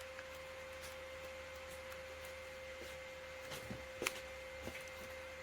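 A few soft clicks of buttons on a small LED-light remote control being pressed, the sharpest about four seconds in, over a faint steady hum.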